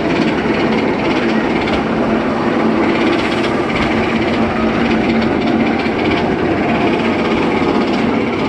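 Steel roller coaster train running on its track: a loud, steady rumble with a hiss and a clatter.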